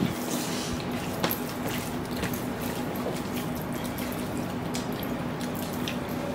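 Instant noodles being eaten fast by hand: wet chewing, slurping and squelching with scattered small clicks, over a steady low hum.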